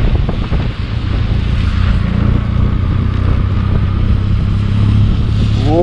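Benelli TRK 502X motorcycle's parallel-twin engine running steadily while riding at low speed, heard from the rider's camera, with wind buffeting the microphone in the first second.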